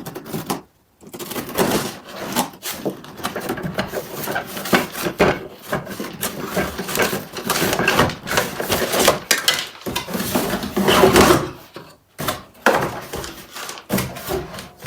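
Rustling and clattering of packaging and parts being handled as a boxed heated clothes airer is unpacked: a busy stretch of irregular knocks and scrapes, with a brief pause near the start and another near the end.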